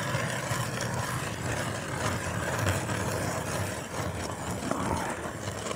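Hand ice auger being cranked down through ice, its blades grinding and scraping steadily.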